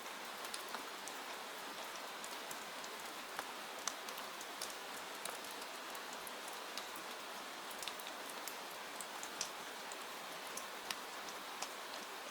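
Steady rain falling, an even hiss with many sharp drop ticks scattered irregularly, several a second.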